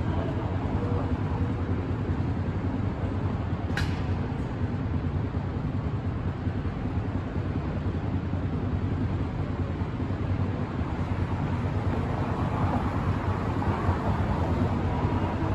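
Steady low rumble of downtown street traffic from the street below, with one sharp click about four seconds in.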